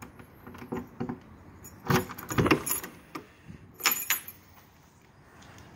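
Keys jangling on their ring as a key is turned in the cylinder lock of a trailer's door, with clusters of clicks and rattles about two and four seconds in as the door is unlatched and pulled open.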